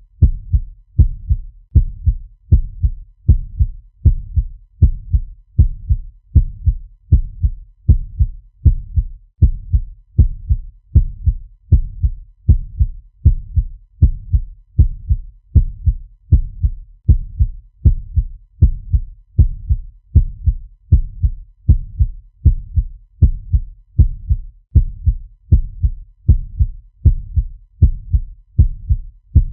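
Fast heartbeat sound effect: deep, low thumps repeating in a steady, even rhythm.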